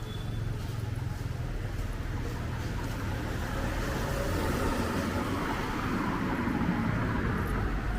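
A road vehicle passing on a wet road: its tyre and engine noise swells about halfway through and fades near the end, over a steady low traffic hum.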